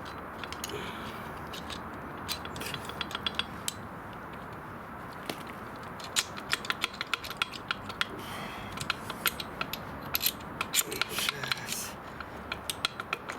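Irregular sharp metallic clicks and taps of hand tools working on the engine's main bearing caps, prying at bearing shells stuck in place. The clicks come in clusters about a third of the way in and again after the middle.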